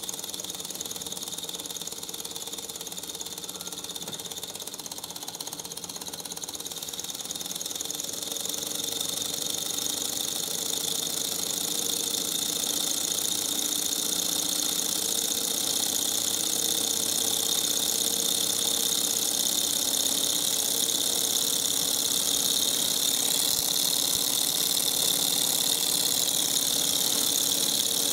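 Small hot-air Stirling engine running steadily, its piston and flywheel making a continuous light mechanical whirr that grows louder about a third of the way in.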